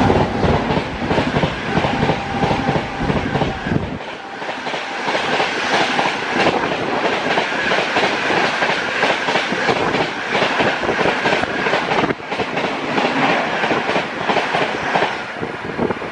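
Dibrugarh Rajdhani Express coaches rushing past at full speed, close by, their wheels clattering over the rail joints in a fast, continuous run of clicks over a loud rushing noise.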